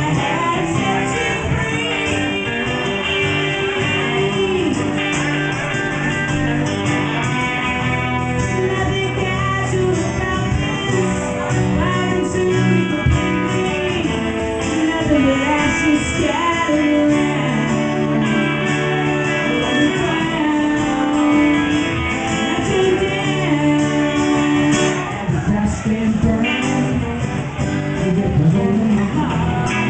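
Live song with a singer's voice over a strummed acoustic guitar, with a Telecaster-style electric guitar playing along.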